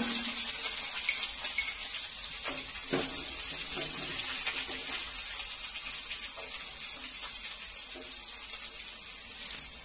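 Hot oil sizzling in a pan with mustard seeds crackling as they splutter, the first step of tempering a seasoning for a curry. The sizzle eases a little toward the end.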